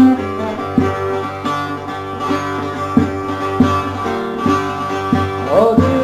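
Song music: an instrumental passage led by a plucked string instrument, with a regular beat.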